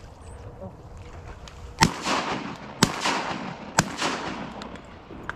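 Three shotgun shots about a second apart, each trailing off in a rolling echo, fired by duck hunters.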